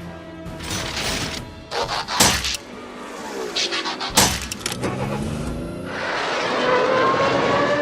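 Cartoon sound effects over background music: several sharp metallic hits and swishes, then from about six seconds a car engine revving with a slowly rising pitch.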